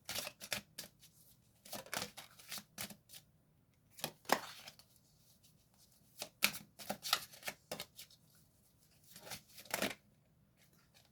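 A deck of tarot cards being shuffled and handled, heard as five short bursts of crisp card rustling and flicking with quiet gaps between them.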